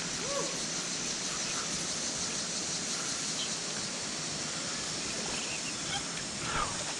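Steady rush of water from a warm-water discharge pouring into a creek, an even hiss with no breaks.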